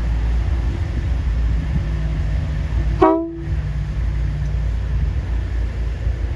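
A short toot of a train air horn about three seconds in, over a steady low rumble.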